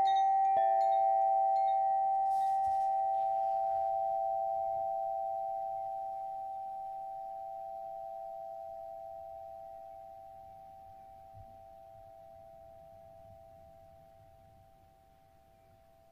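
Rock-crystal sound instruments struck, the last strike about half a second in, ringing on in a few close, steady tones that slowly fade away almost to nothing.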